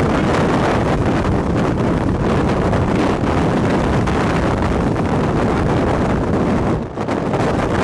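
Tornado wind buffeting the microphone as the vehicle drives into the tornado's blowing dust: a loud, dense rush of wind noise, dropping briefly about seven seconds in.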